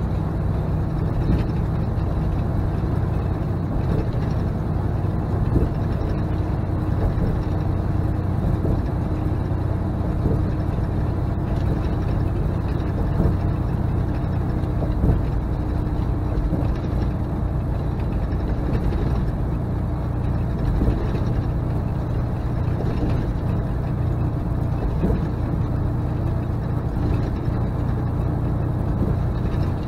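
Steady drone of a semi truck's diesel engine and road noise heard from inside the cab while driving.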